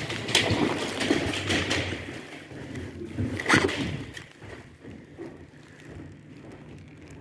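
Rustling of clothing and handling noise on a phone microphone held against the body, with scuffs and small knocks. The loudest brush comes about three and a half seconds in, then it goes quieter.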